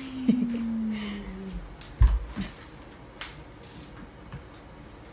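A person's drawn-out hum, one long tone sliding slowly down in pitch and ending about a second and a half in. A single low thud comes about two seconds in, with a few light clicks scattered around it.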